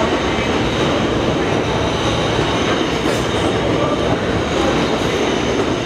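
Bombardier R179 subway train running past an underground station platform. Its steel wheels rumble steadily and loudly on the rails.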